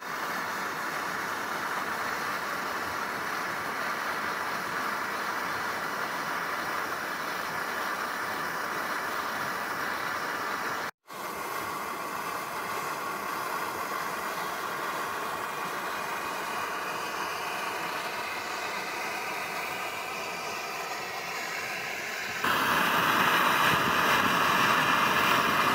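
Kovea Booster +1 multifuel camping stove burning with a steady hiss under a pot of water. The sound breaks off for a moment about eleven seconds in, and grows louder near the end.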